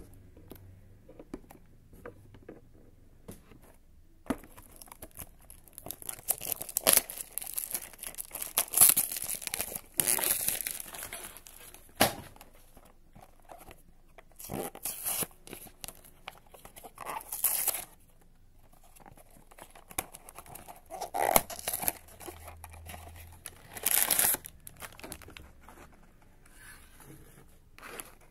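Hands tearing open a cardboard Funko Mystery Minis blind box: irregular bursts of tearing and crinkling start about four seconds in, with short quiet gaps between them.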